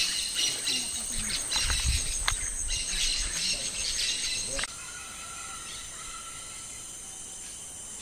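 Rainforest ambience: insects and birds chirping in quick repeated calls. About halfway through, the sound cuts abruptly to a quieter, steady insect drone.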